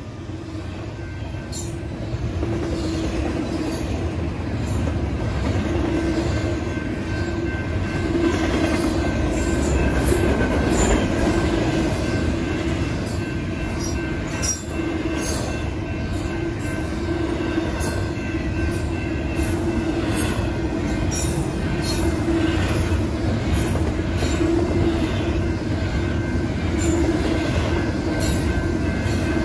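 Union Pacific double-stack intermodal freight train passing close by: a steady rumble of steel wheels on rail, with scattered clicks and a thin, steady wheel squeal. It grows louder over the first several seconds, then holds.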